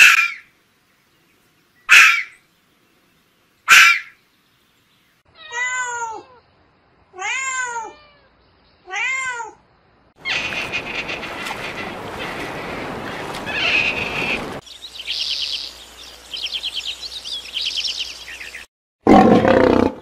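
A series of animal calls: a red fox gives three sharp screams about two seconds apart, then three rising-and-falling calls. A stretch of cat sounds follows, with hissy noise and then fast trilling calls, and a lion's roar starts near the end.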